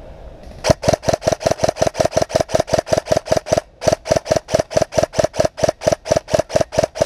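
Airsoft gun firing a rapid string of shots, about six or seven a second, with a short break about halfway through.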